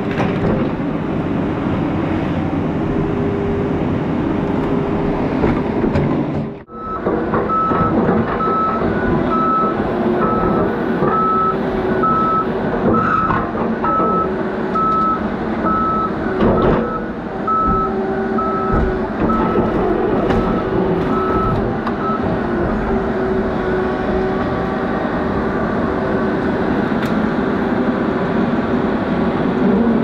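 Diesel engine of a heavy logging machine running steadily with a log grapple at work. A backup alarm beeps at an even pace from about a quarter of the way in until about two-thirds through.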